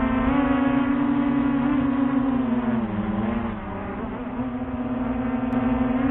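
Small drone's propellers and motors humming with a steady, high buzz. The pitch sags and the sound softens about three seconds in, then climbs back as the throttle changes.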